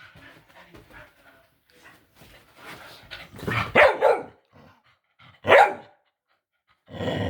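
Pet dog barking: soft grumbling noises at first, then two loud barks, one a little after halfway and one about two seconds later, and a longer low vocal sound right at the end. The owner takes the barking as a demand for attention, a tummy rub.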